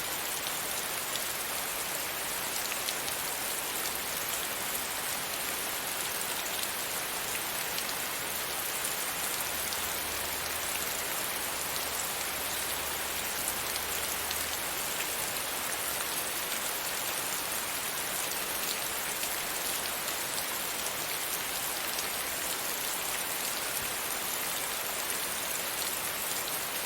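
Steady rain falling, a dense even hiss of drops with scattered individual patters on a surface.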